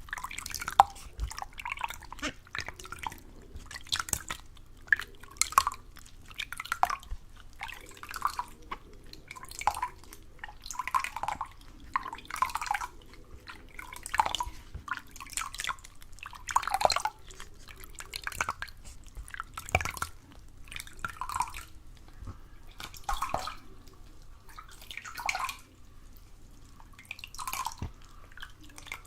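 Water dripping and splashing in short, irregular drops, roughly one or two a second.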